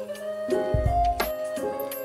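Background instrumental music: a melody of short pitched notes over a low bass that recurs about once a second.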